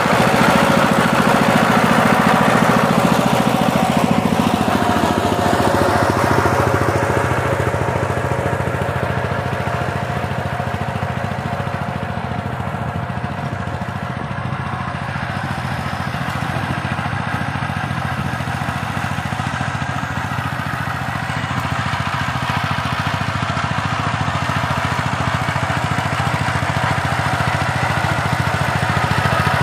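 Single-cylinder diesel engine of a two-wheel Sifang power tiller, running steadily under load while tilling. It grows quieter partway through and louder again near the end.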